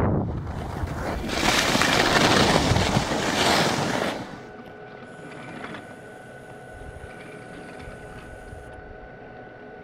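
Skis sliding fast over packed snow with wind rushing over the microphone, cutting off suddenly about four seconds in as the skier stops. After that comes a much quieter, steady mechanical hum with a few faint high tones.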